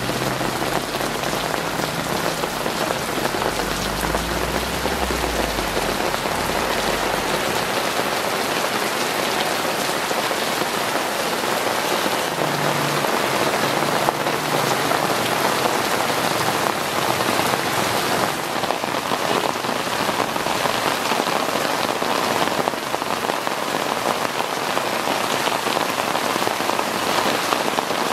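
Heavy rain pouring down and hitting surfaces, a steady dense hiss. A low rumble runs under it for the first few seconds, then fades.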